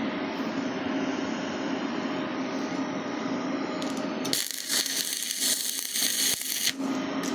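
Resanta SAI-250K welding inverter running under load, its cooling fan giving a steady hum with a low tone. About four seconds in, a loud hiss comes in for roughly two seconds, then stops.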